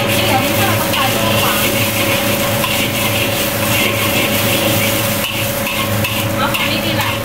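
Rice being stir-fried in a wok: the metal wok spatula scrapes and clinks against the pan over a steady sizzle, with a steady hum underneath.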